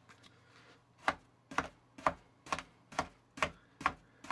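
Blue plastic sand-cutter tool chopping down through a loaf of kinetic play sand onto a cutting board, a sharp tap at each stroke. The chops start about a second in and come evenly, about two a second.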